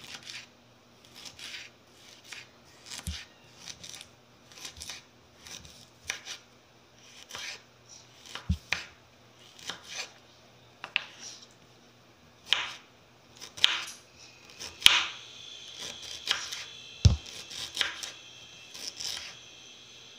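Kitchen knife slicing garlic on a wooden cutting board: irregular taps of the blade against the board, roughly one or two a second, with a few heavier knocks.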